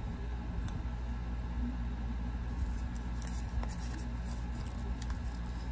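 Small folded paper note being handled and unfolded: faint crinkles and light clicks, a few of them about three seconds in, over a steady low hum.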